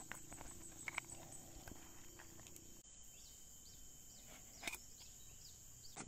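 Faint forest ambience: a steady high insect drone, with a run of short, high, falling chirps in the second half and a few scattered clicks. The low background noise drops away abruptly about halfway through.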